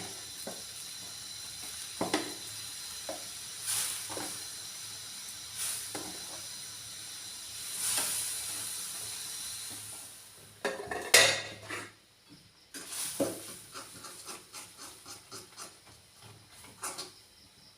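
Food sizzling in a pan while a spatula stirs and scrapes it, a stroke about every two seconds. About two-thirds of the way in there is a loud clatter, the sizzle dies down, and a run of quick light taps follows.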